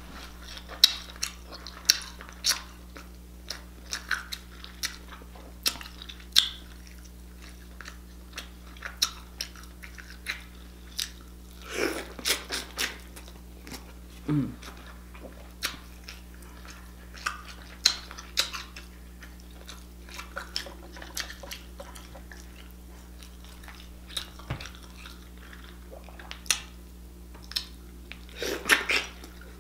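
A person eating king crab close to the microphone: irregular wet bites, smacks and crunchy clicks of chewing crab meat.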